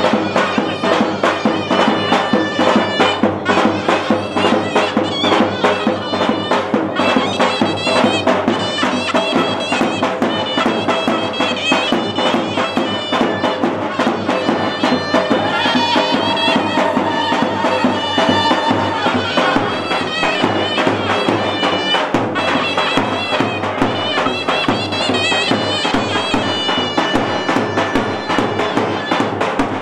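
Kurdish folk dance music: a reedy, piping wind-instrument lead melody over a dense, fast drum beat, playing without a break.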